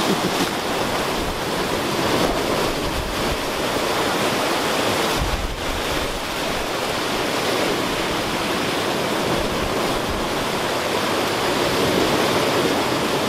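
Rough ocean surf breaking and washing over shoreline rocks in a steady rush of white water, with a brief low rumble about five seconds in.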